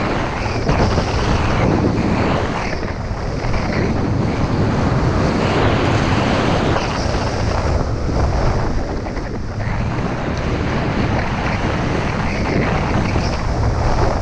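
Wind rushing over the microphone of a camera carried by a skier going fast downhill, mixed with the hiss and scrape of skis carving on packed, chopped-up snow. The rush swells and eases with the turns.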